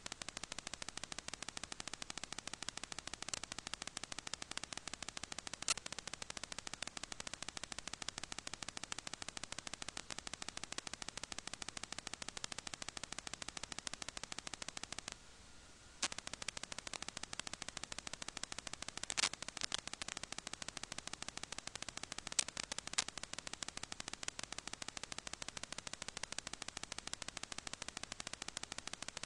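Continuous crackling static made of rapid, closely packed clicks, with a few louder clicks and a drop-out of about a second midway.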